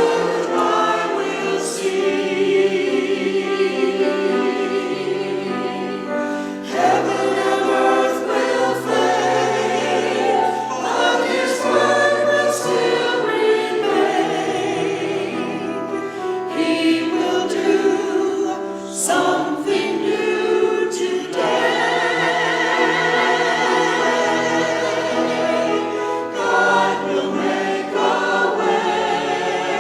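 Church choir singing with long held, wavering notes that change pitch every few seconds.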